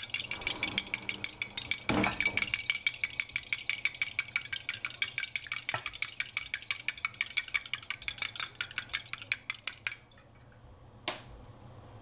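Egg white being beaten in a drinking glass, a utensil clinking rapidly against the glass at about five strokes a second. The beating stops about ten seconds in, and one light tap follows near the end.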